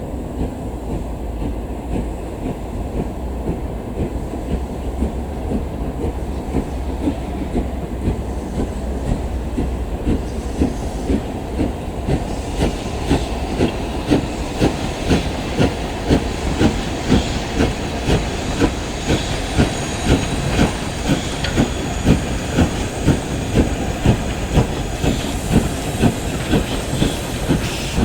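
Steam-hauled train headed by LMS Black Five 4-6-0 locomotives running along the line with a steady low rumble. About halfway in, a regular rhythmic beat sets in, and a hiss rises near the end.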